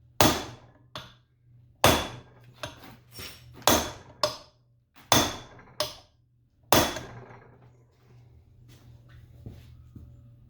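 Hammer blows on metal, driving a stuck part out of a variable-speed gearbox. Five hard, ringing strikes come roughly a second and a half apart, with lighter taps between; only small clicks follow after about seven seconds. A steady low hum runs underneath.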